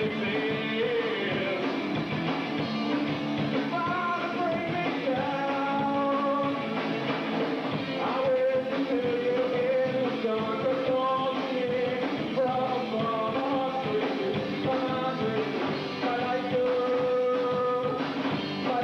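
Live rock band playing a song with singing, recorded on VHS tape so the top end is dull.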